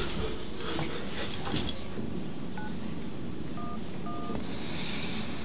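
iPhone keypad tones dialing 9-1-1: three short two-tone beeps, the first about two and a half seconds in, the other two a second later and about half a second apart, over a steady low background hum.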